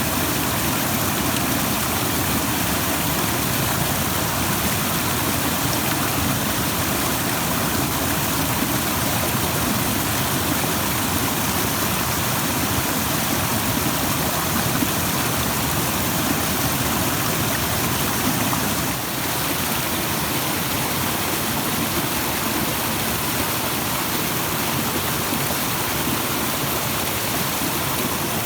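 Rushing stream water in a steady, even rush, with a brief dip in level about two-thirds of the way through.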